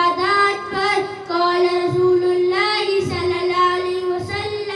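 A boy's voice chanting Arabic hadith text into a microphone in a sing-song melody with long held notes.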